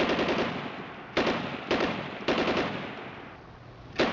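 Automatic gunfire in several short bursts of rapid shots, each burst's echo dying away before the next, with a longer lull before the last burst near the end.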